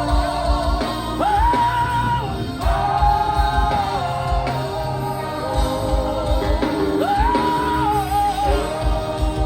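Live gospel music: a singer holding long notes over a band with a steady low beat.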